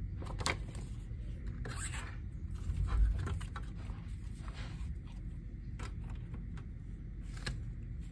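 Paper rustling and sliding as a glossy folded poster and a lyrics booklet are handled, with light clicks and taps from a plastic CD jewel case. A soft thump about three seconds in.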